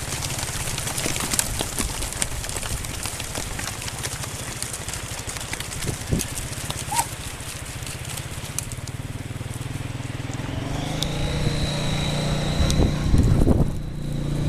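Quad bike engine running steadily, growing louder from about ten seconds in as a thin high whine comes in. Scattered sharp clicks and knocks over the first half.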